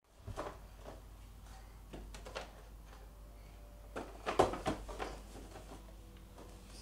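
Cardboard Kinder Surprise egg boxes handled and set down on a table: a few short knocks and rustles, the loudest about four and a half seconds in.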